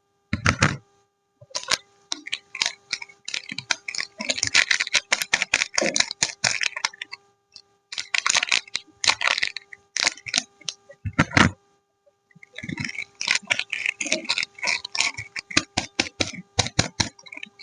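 Soap bars being unwrapped by hand: packaging crinkling, crackling and rustling in dense bursts, with two heavier knocks, one about half a second in and one near 11 seconds.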